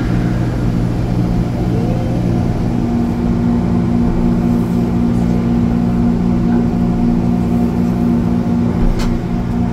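Newark AirTrain monorail car running between stations: a steady electric motor hum over low rumble, the hum's tones shifting a little about two to three seconds in. A single sharp click near the end.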